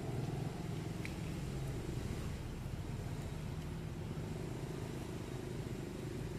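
Steady low rumble of a running motor vehicle engine, with one brief faint high chirp about a second in.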